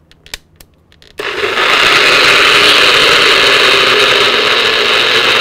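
Magic Bullet personal blender motor starting abruptly about a second in and running loud and steady, blending a thick chile and tomato sauce. A few light clicks of the cup being handled come before it starts.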